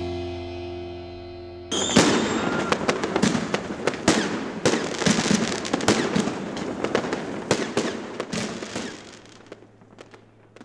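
The song's last chord ringing out and fading, broken off a little under two seconds in by a sudden burst of dense crackling and popping, which thins out and fades away over the next several seconds.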